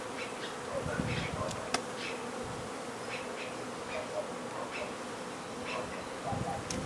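A colony of honey bees buzzing in a steady drone around an opened hive, with a few short clicks over it.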